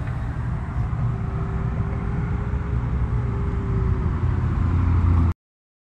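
Steady low rumble with a faint held hum, cutting off suddenly about five seconds in.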